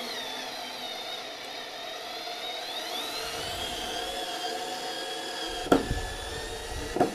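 Small 4 V cordless screwdriver (the older Parkside model) running under load while it drives a screw, a steady geared-motor whine whose pitch drifts as the load changes. Two sharp knocks come near the end before it stops. It keeps turning under the load rather than cutting out into overload protection.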